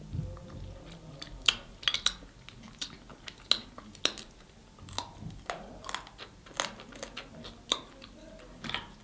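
A person eating snow crab legs: chewing, with irregular sharp cracks and clicks about one or two a second.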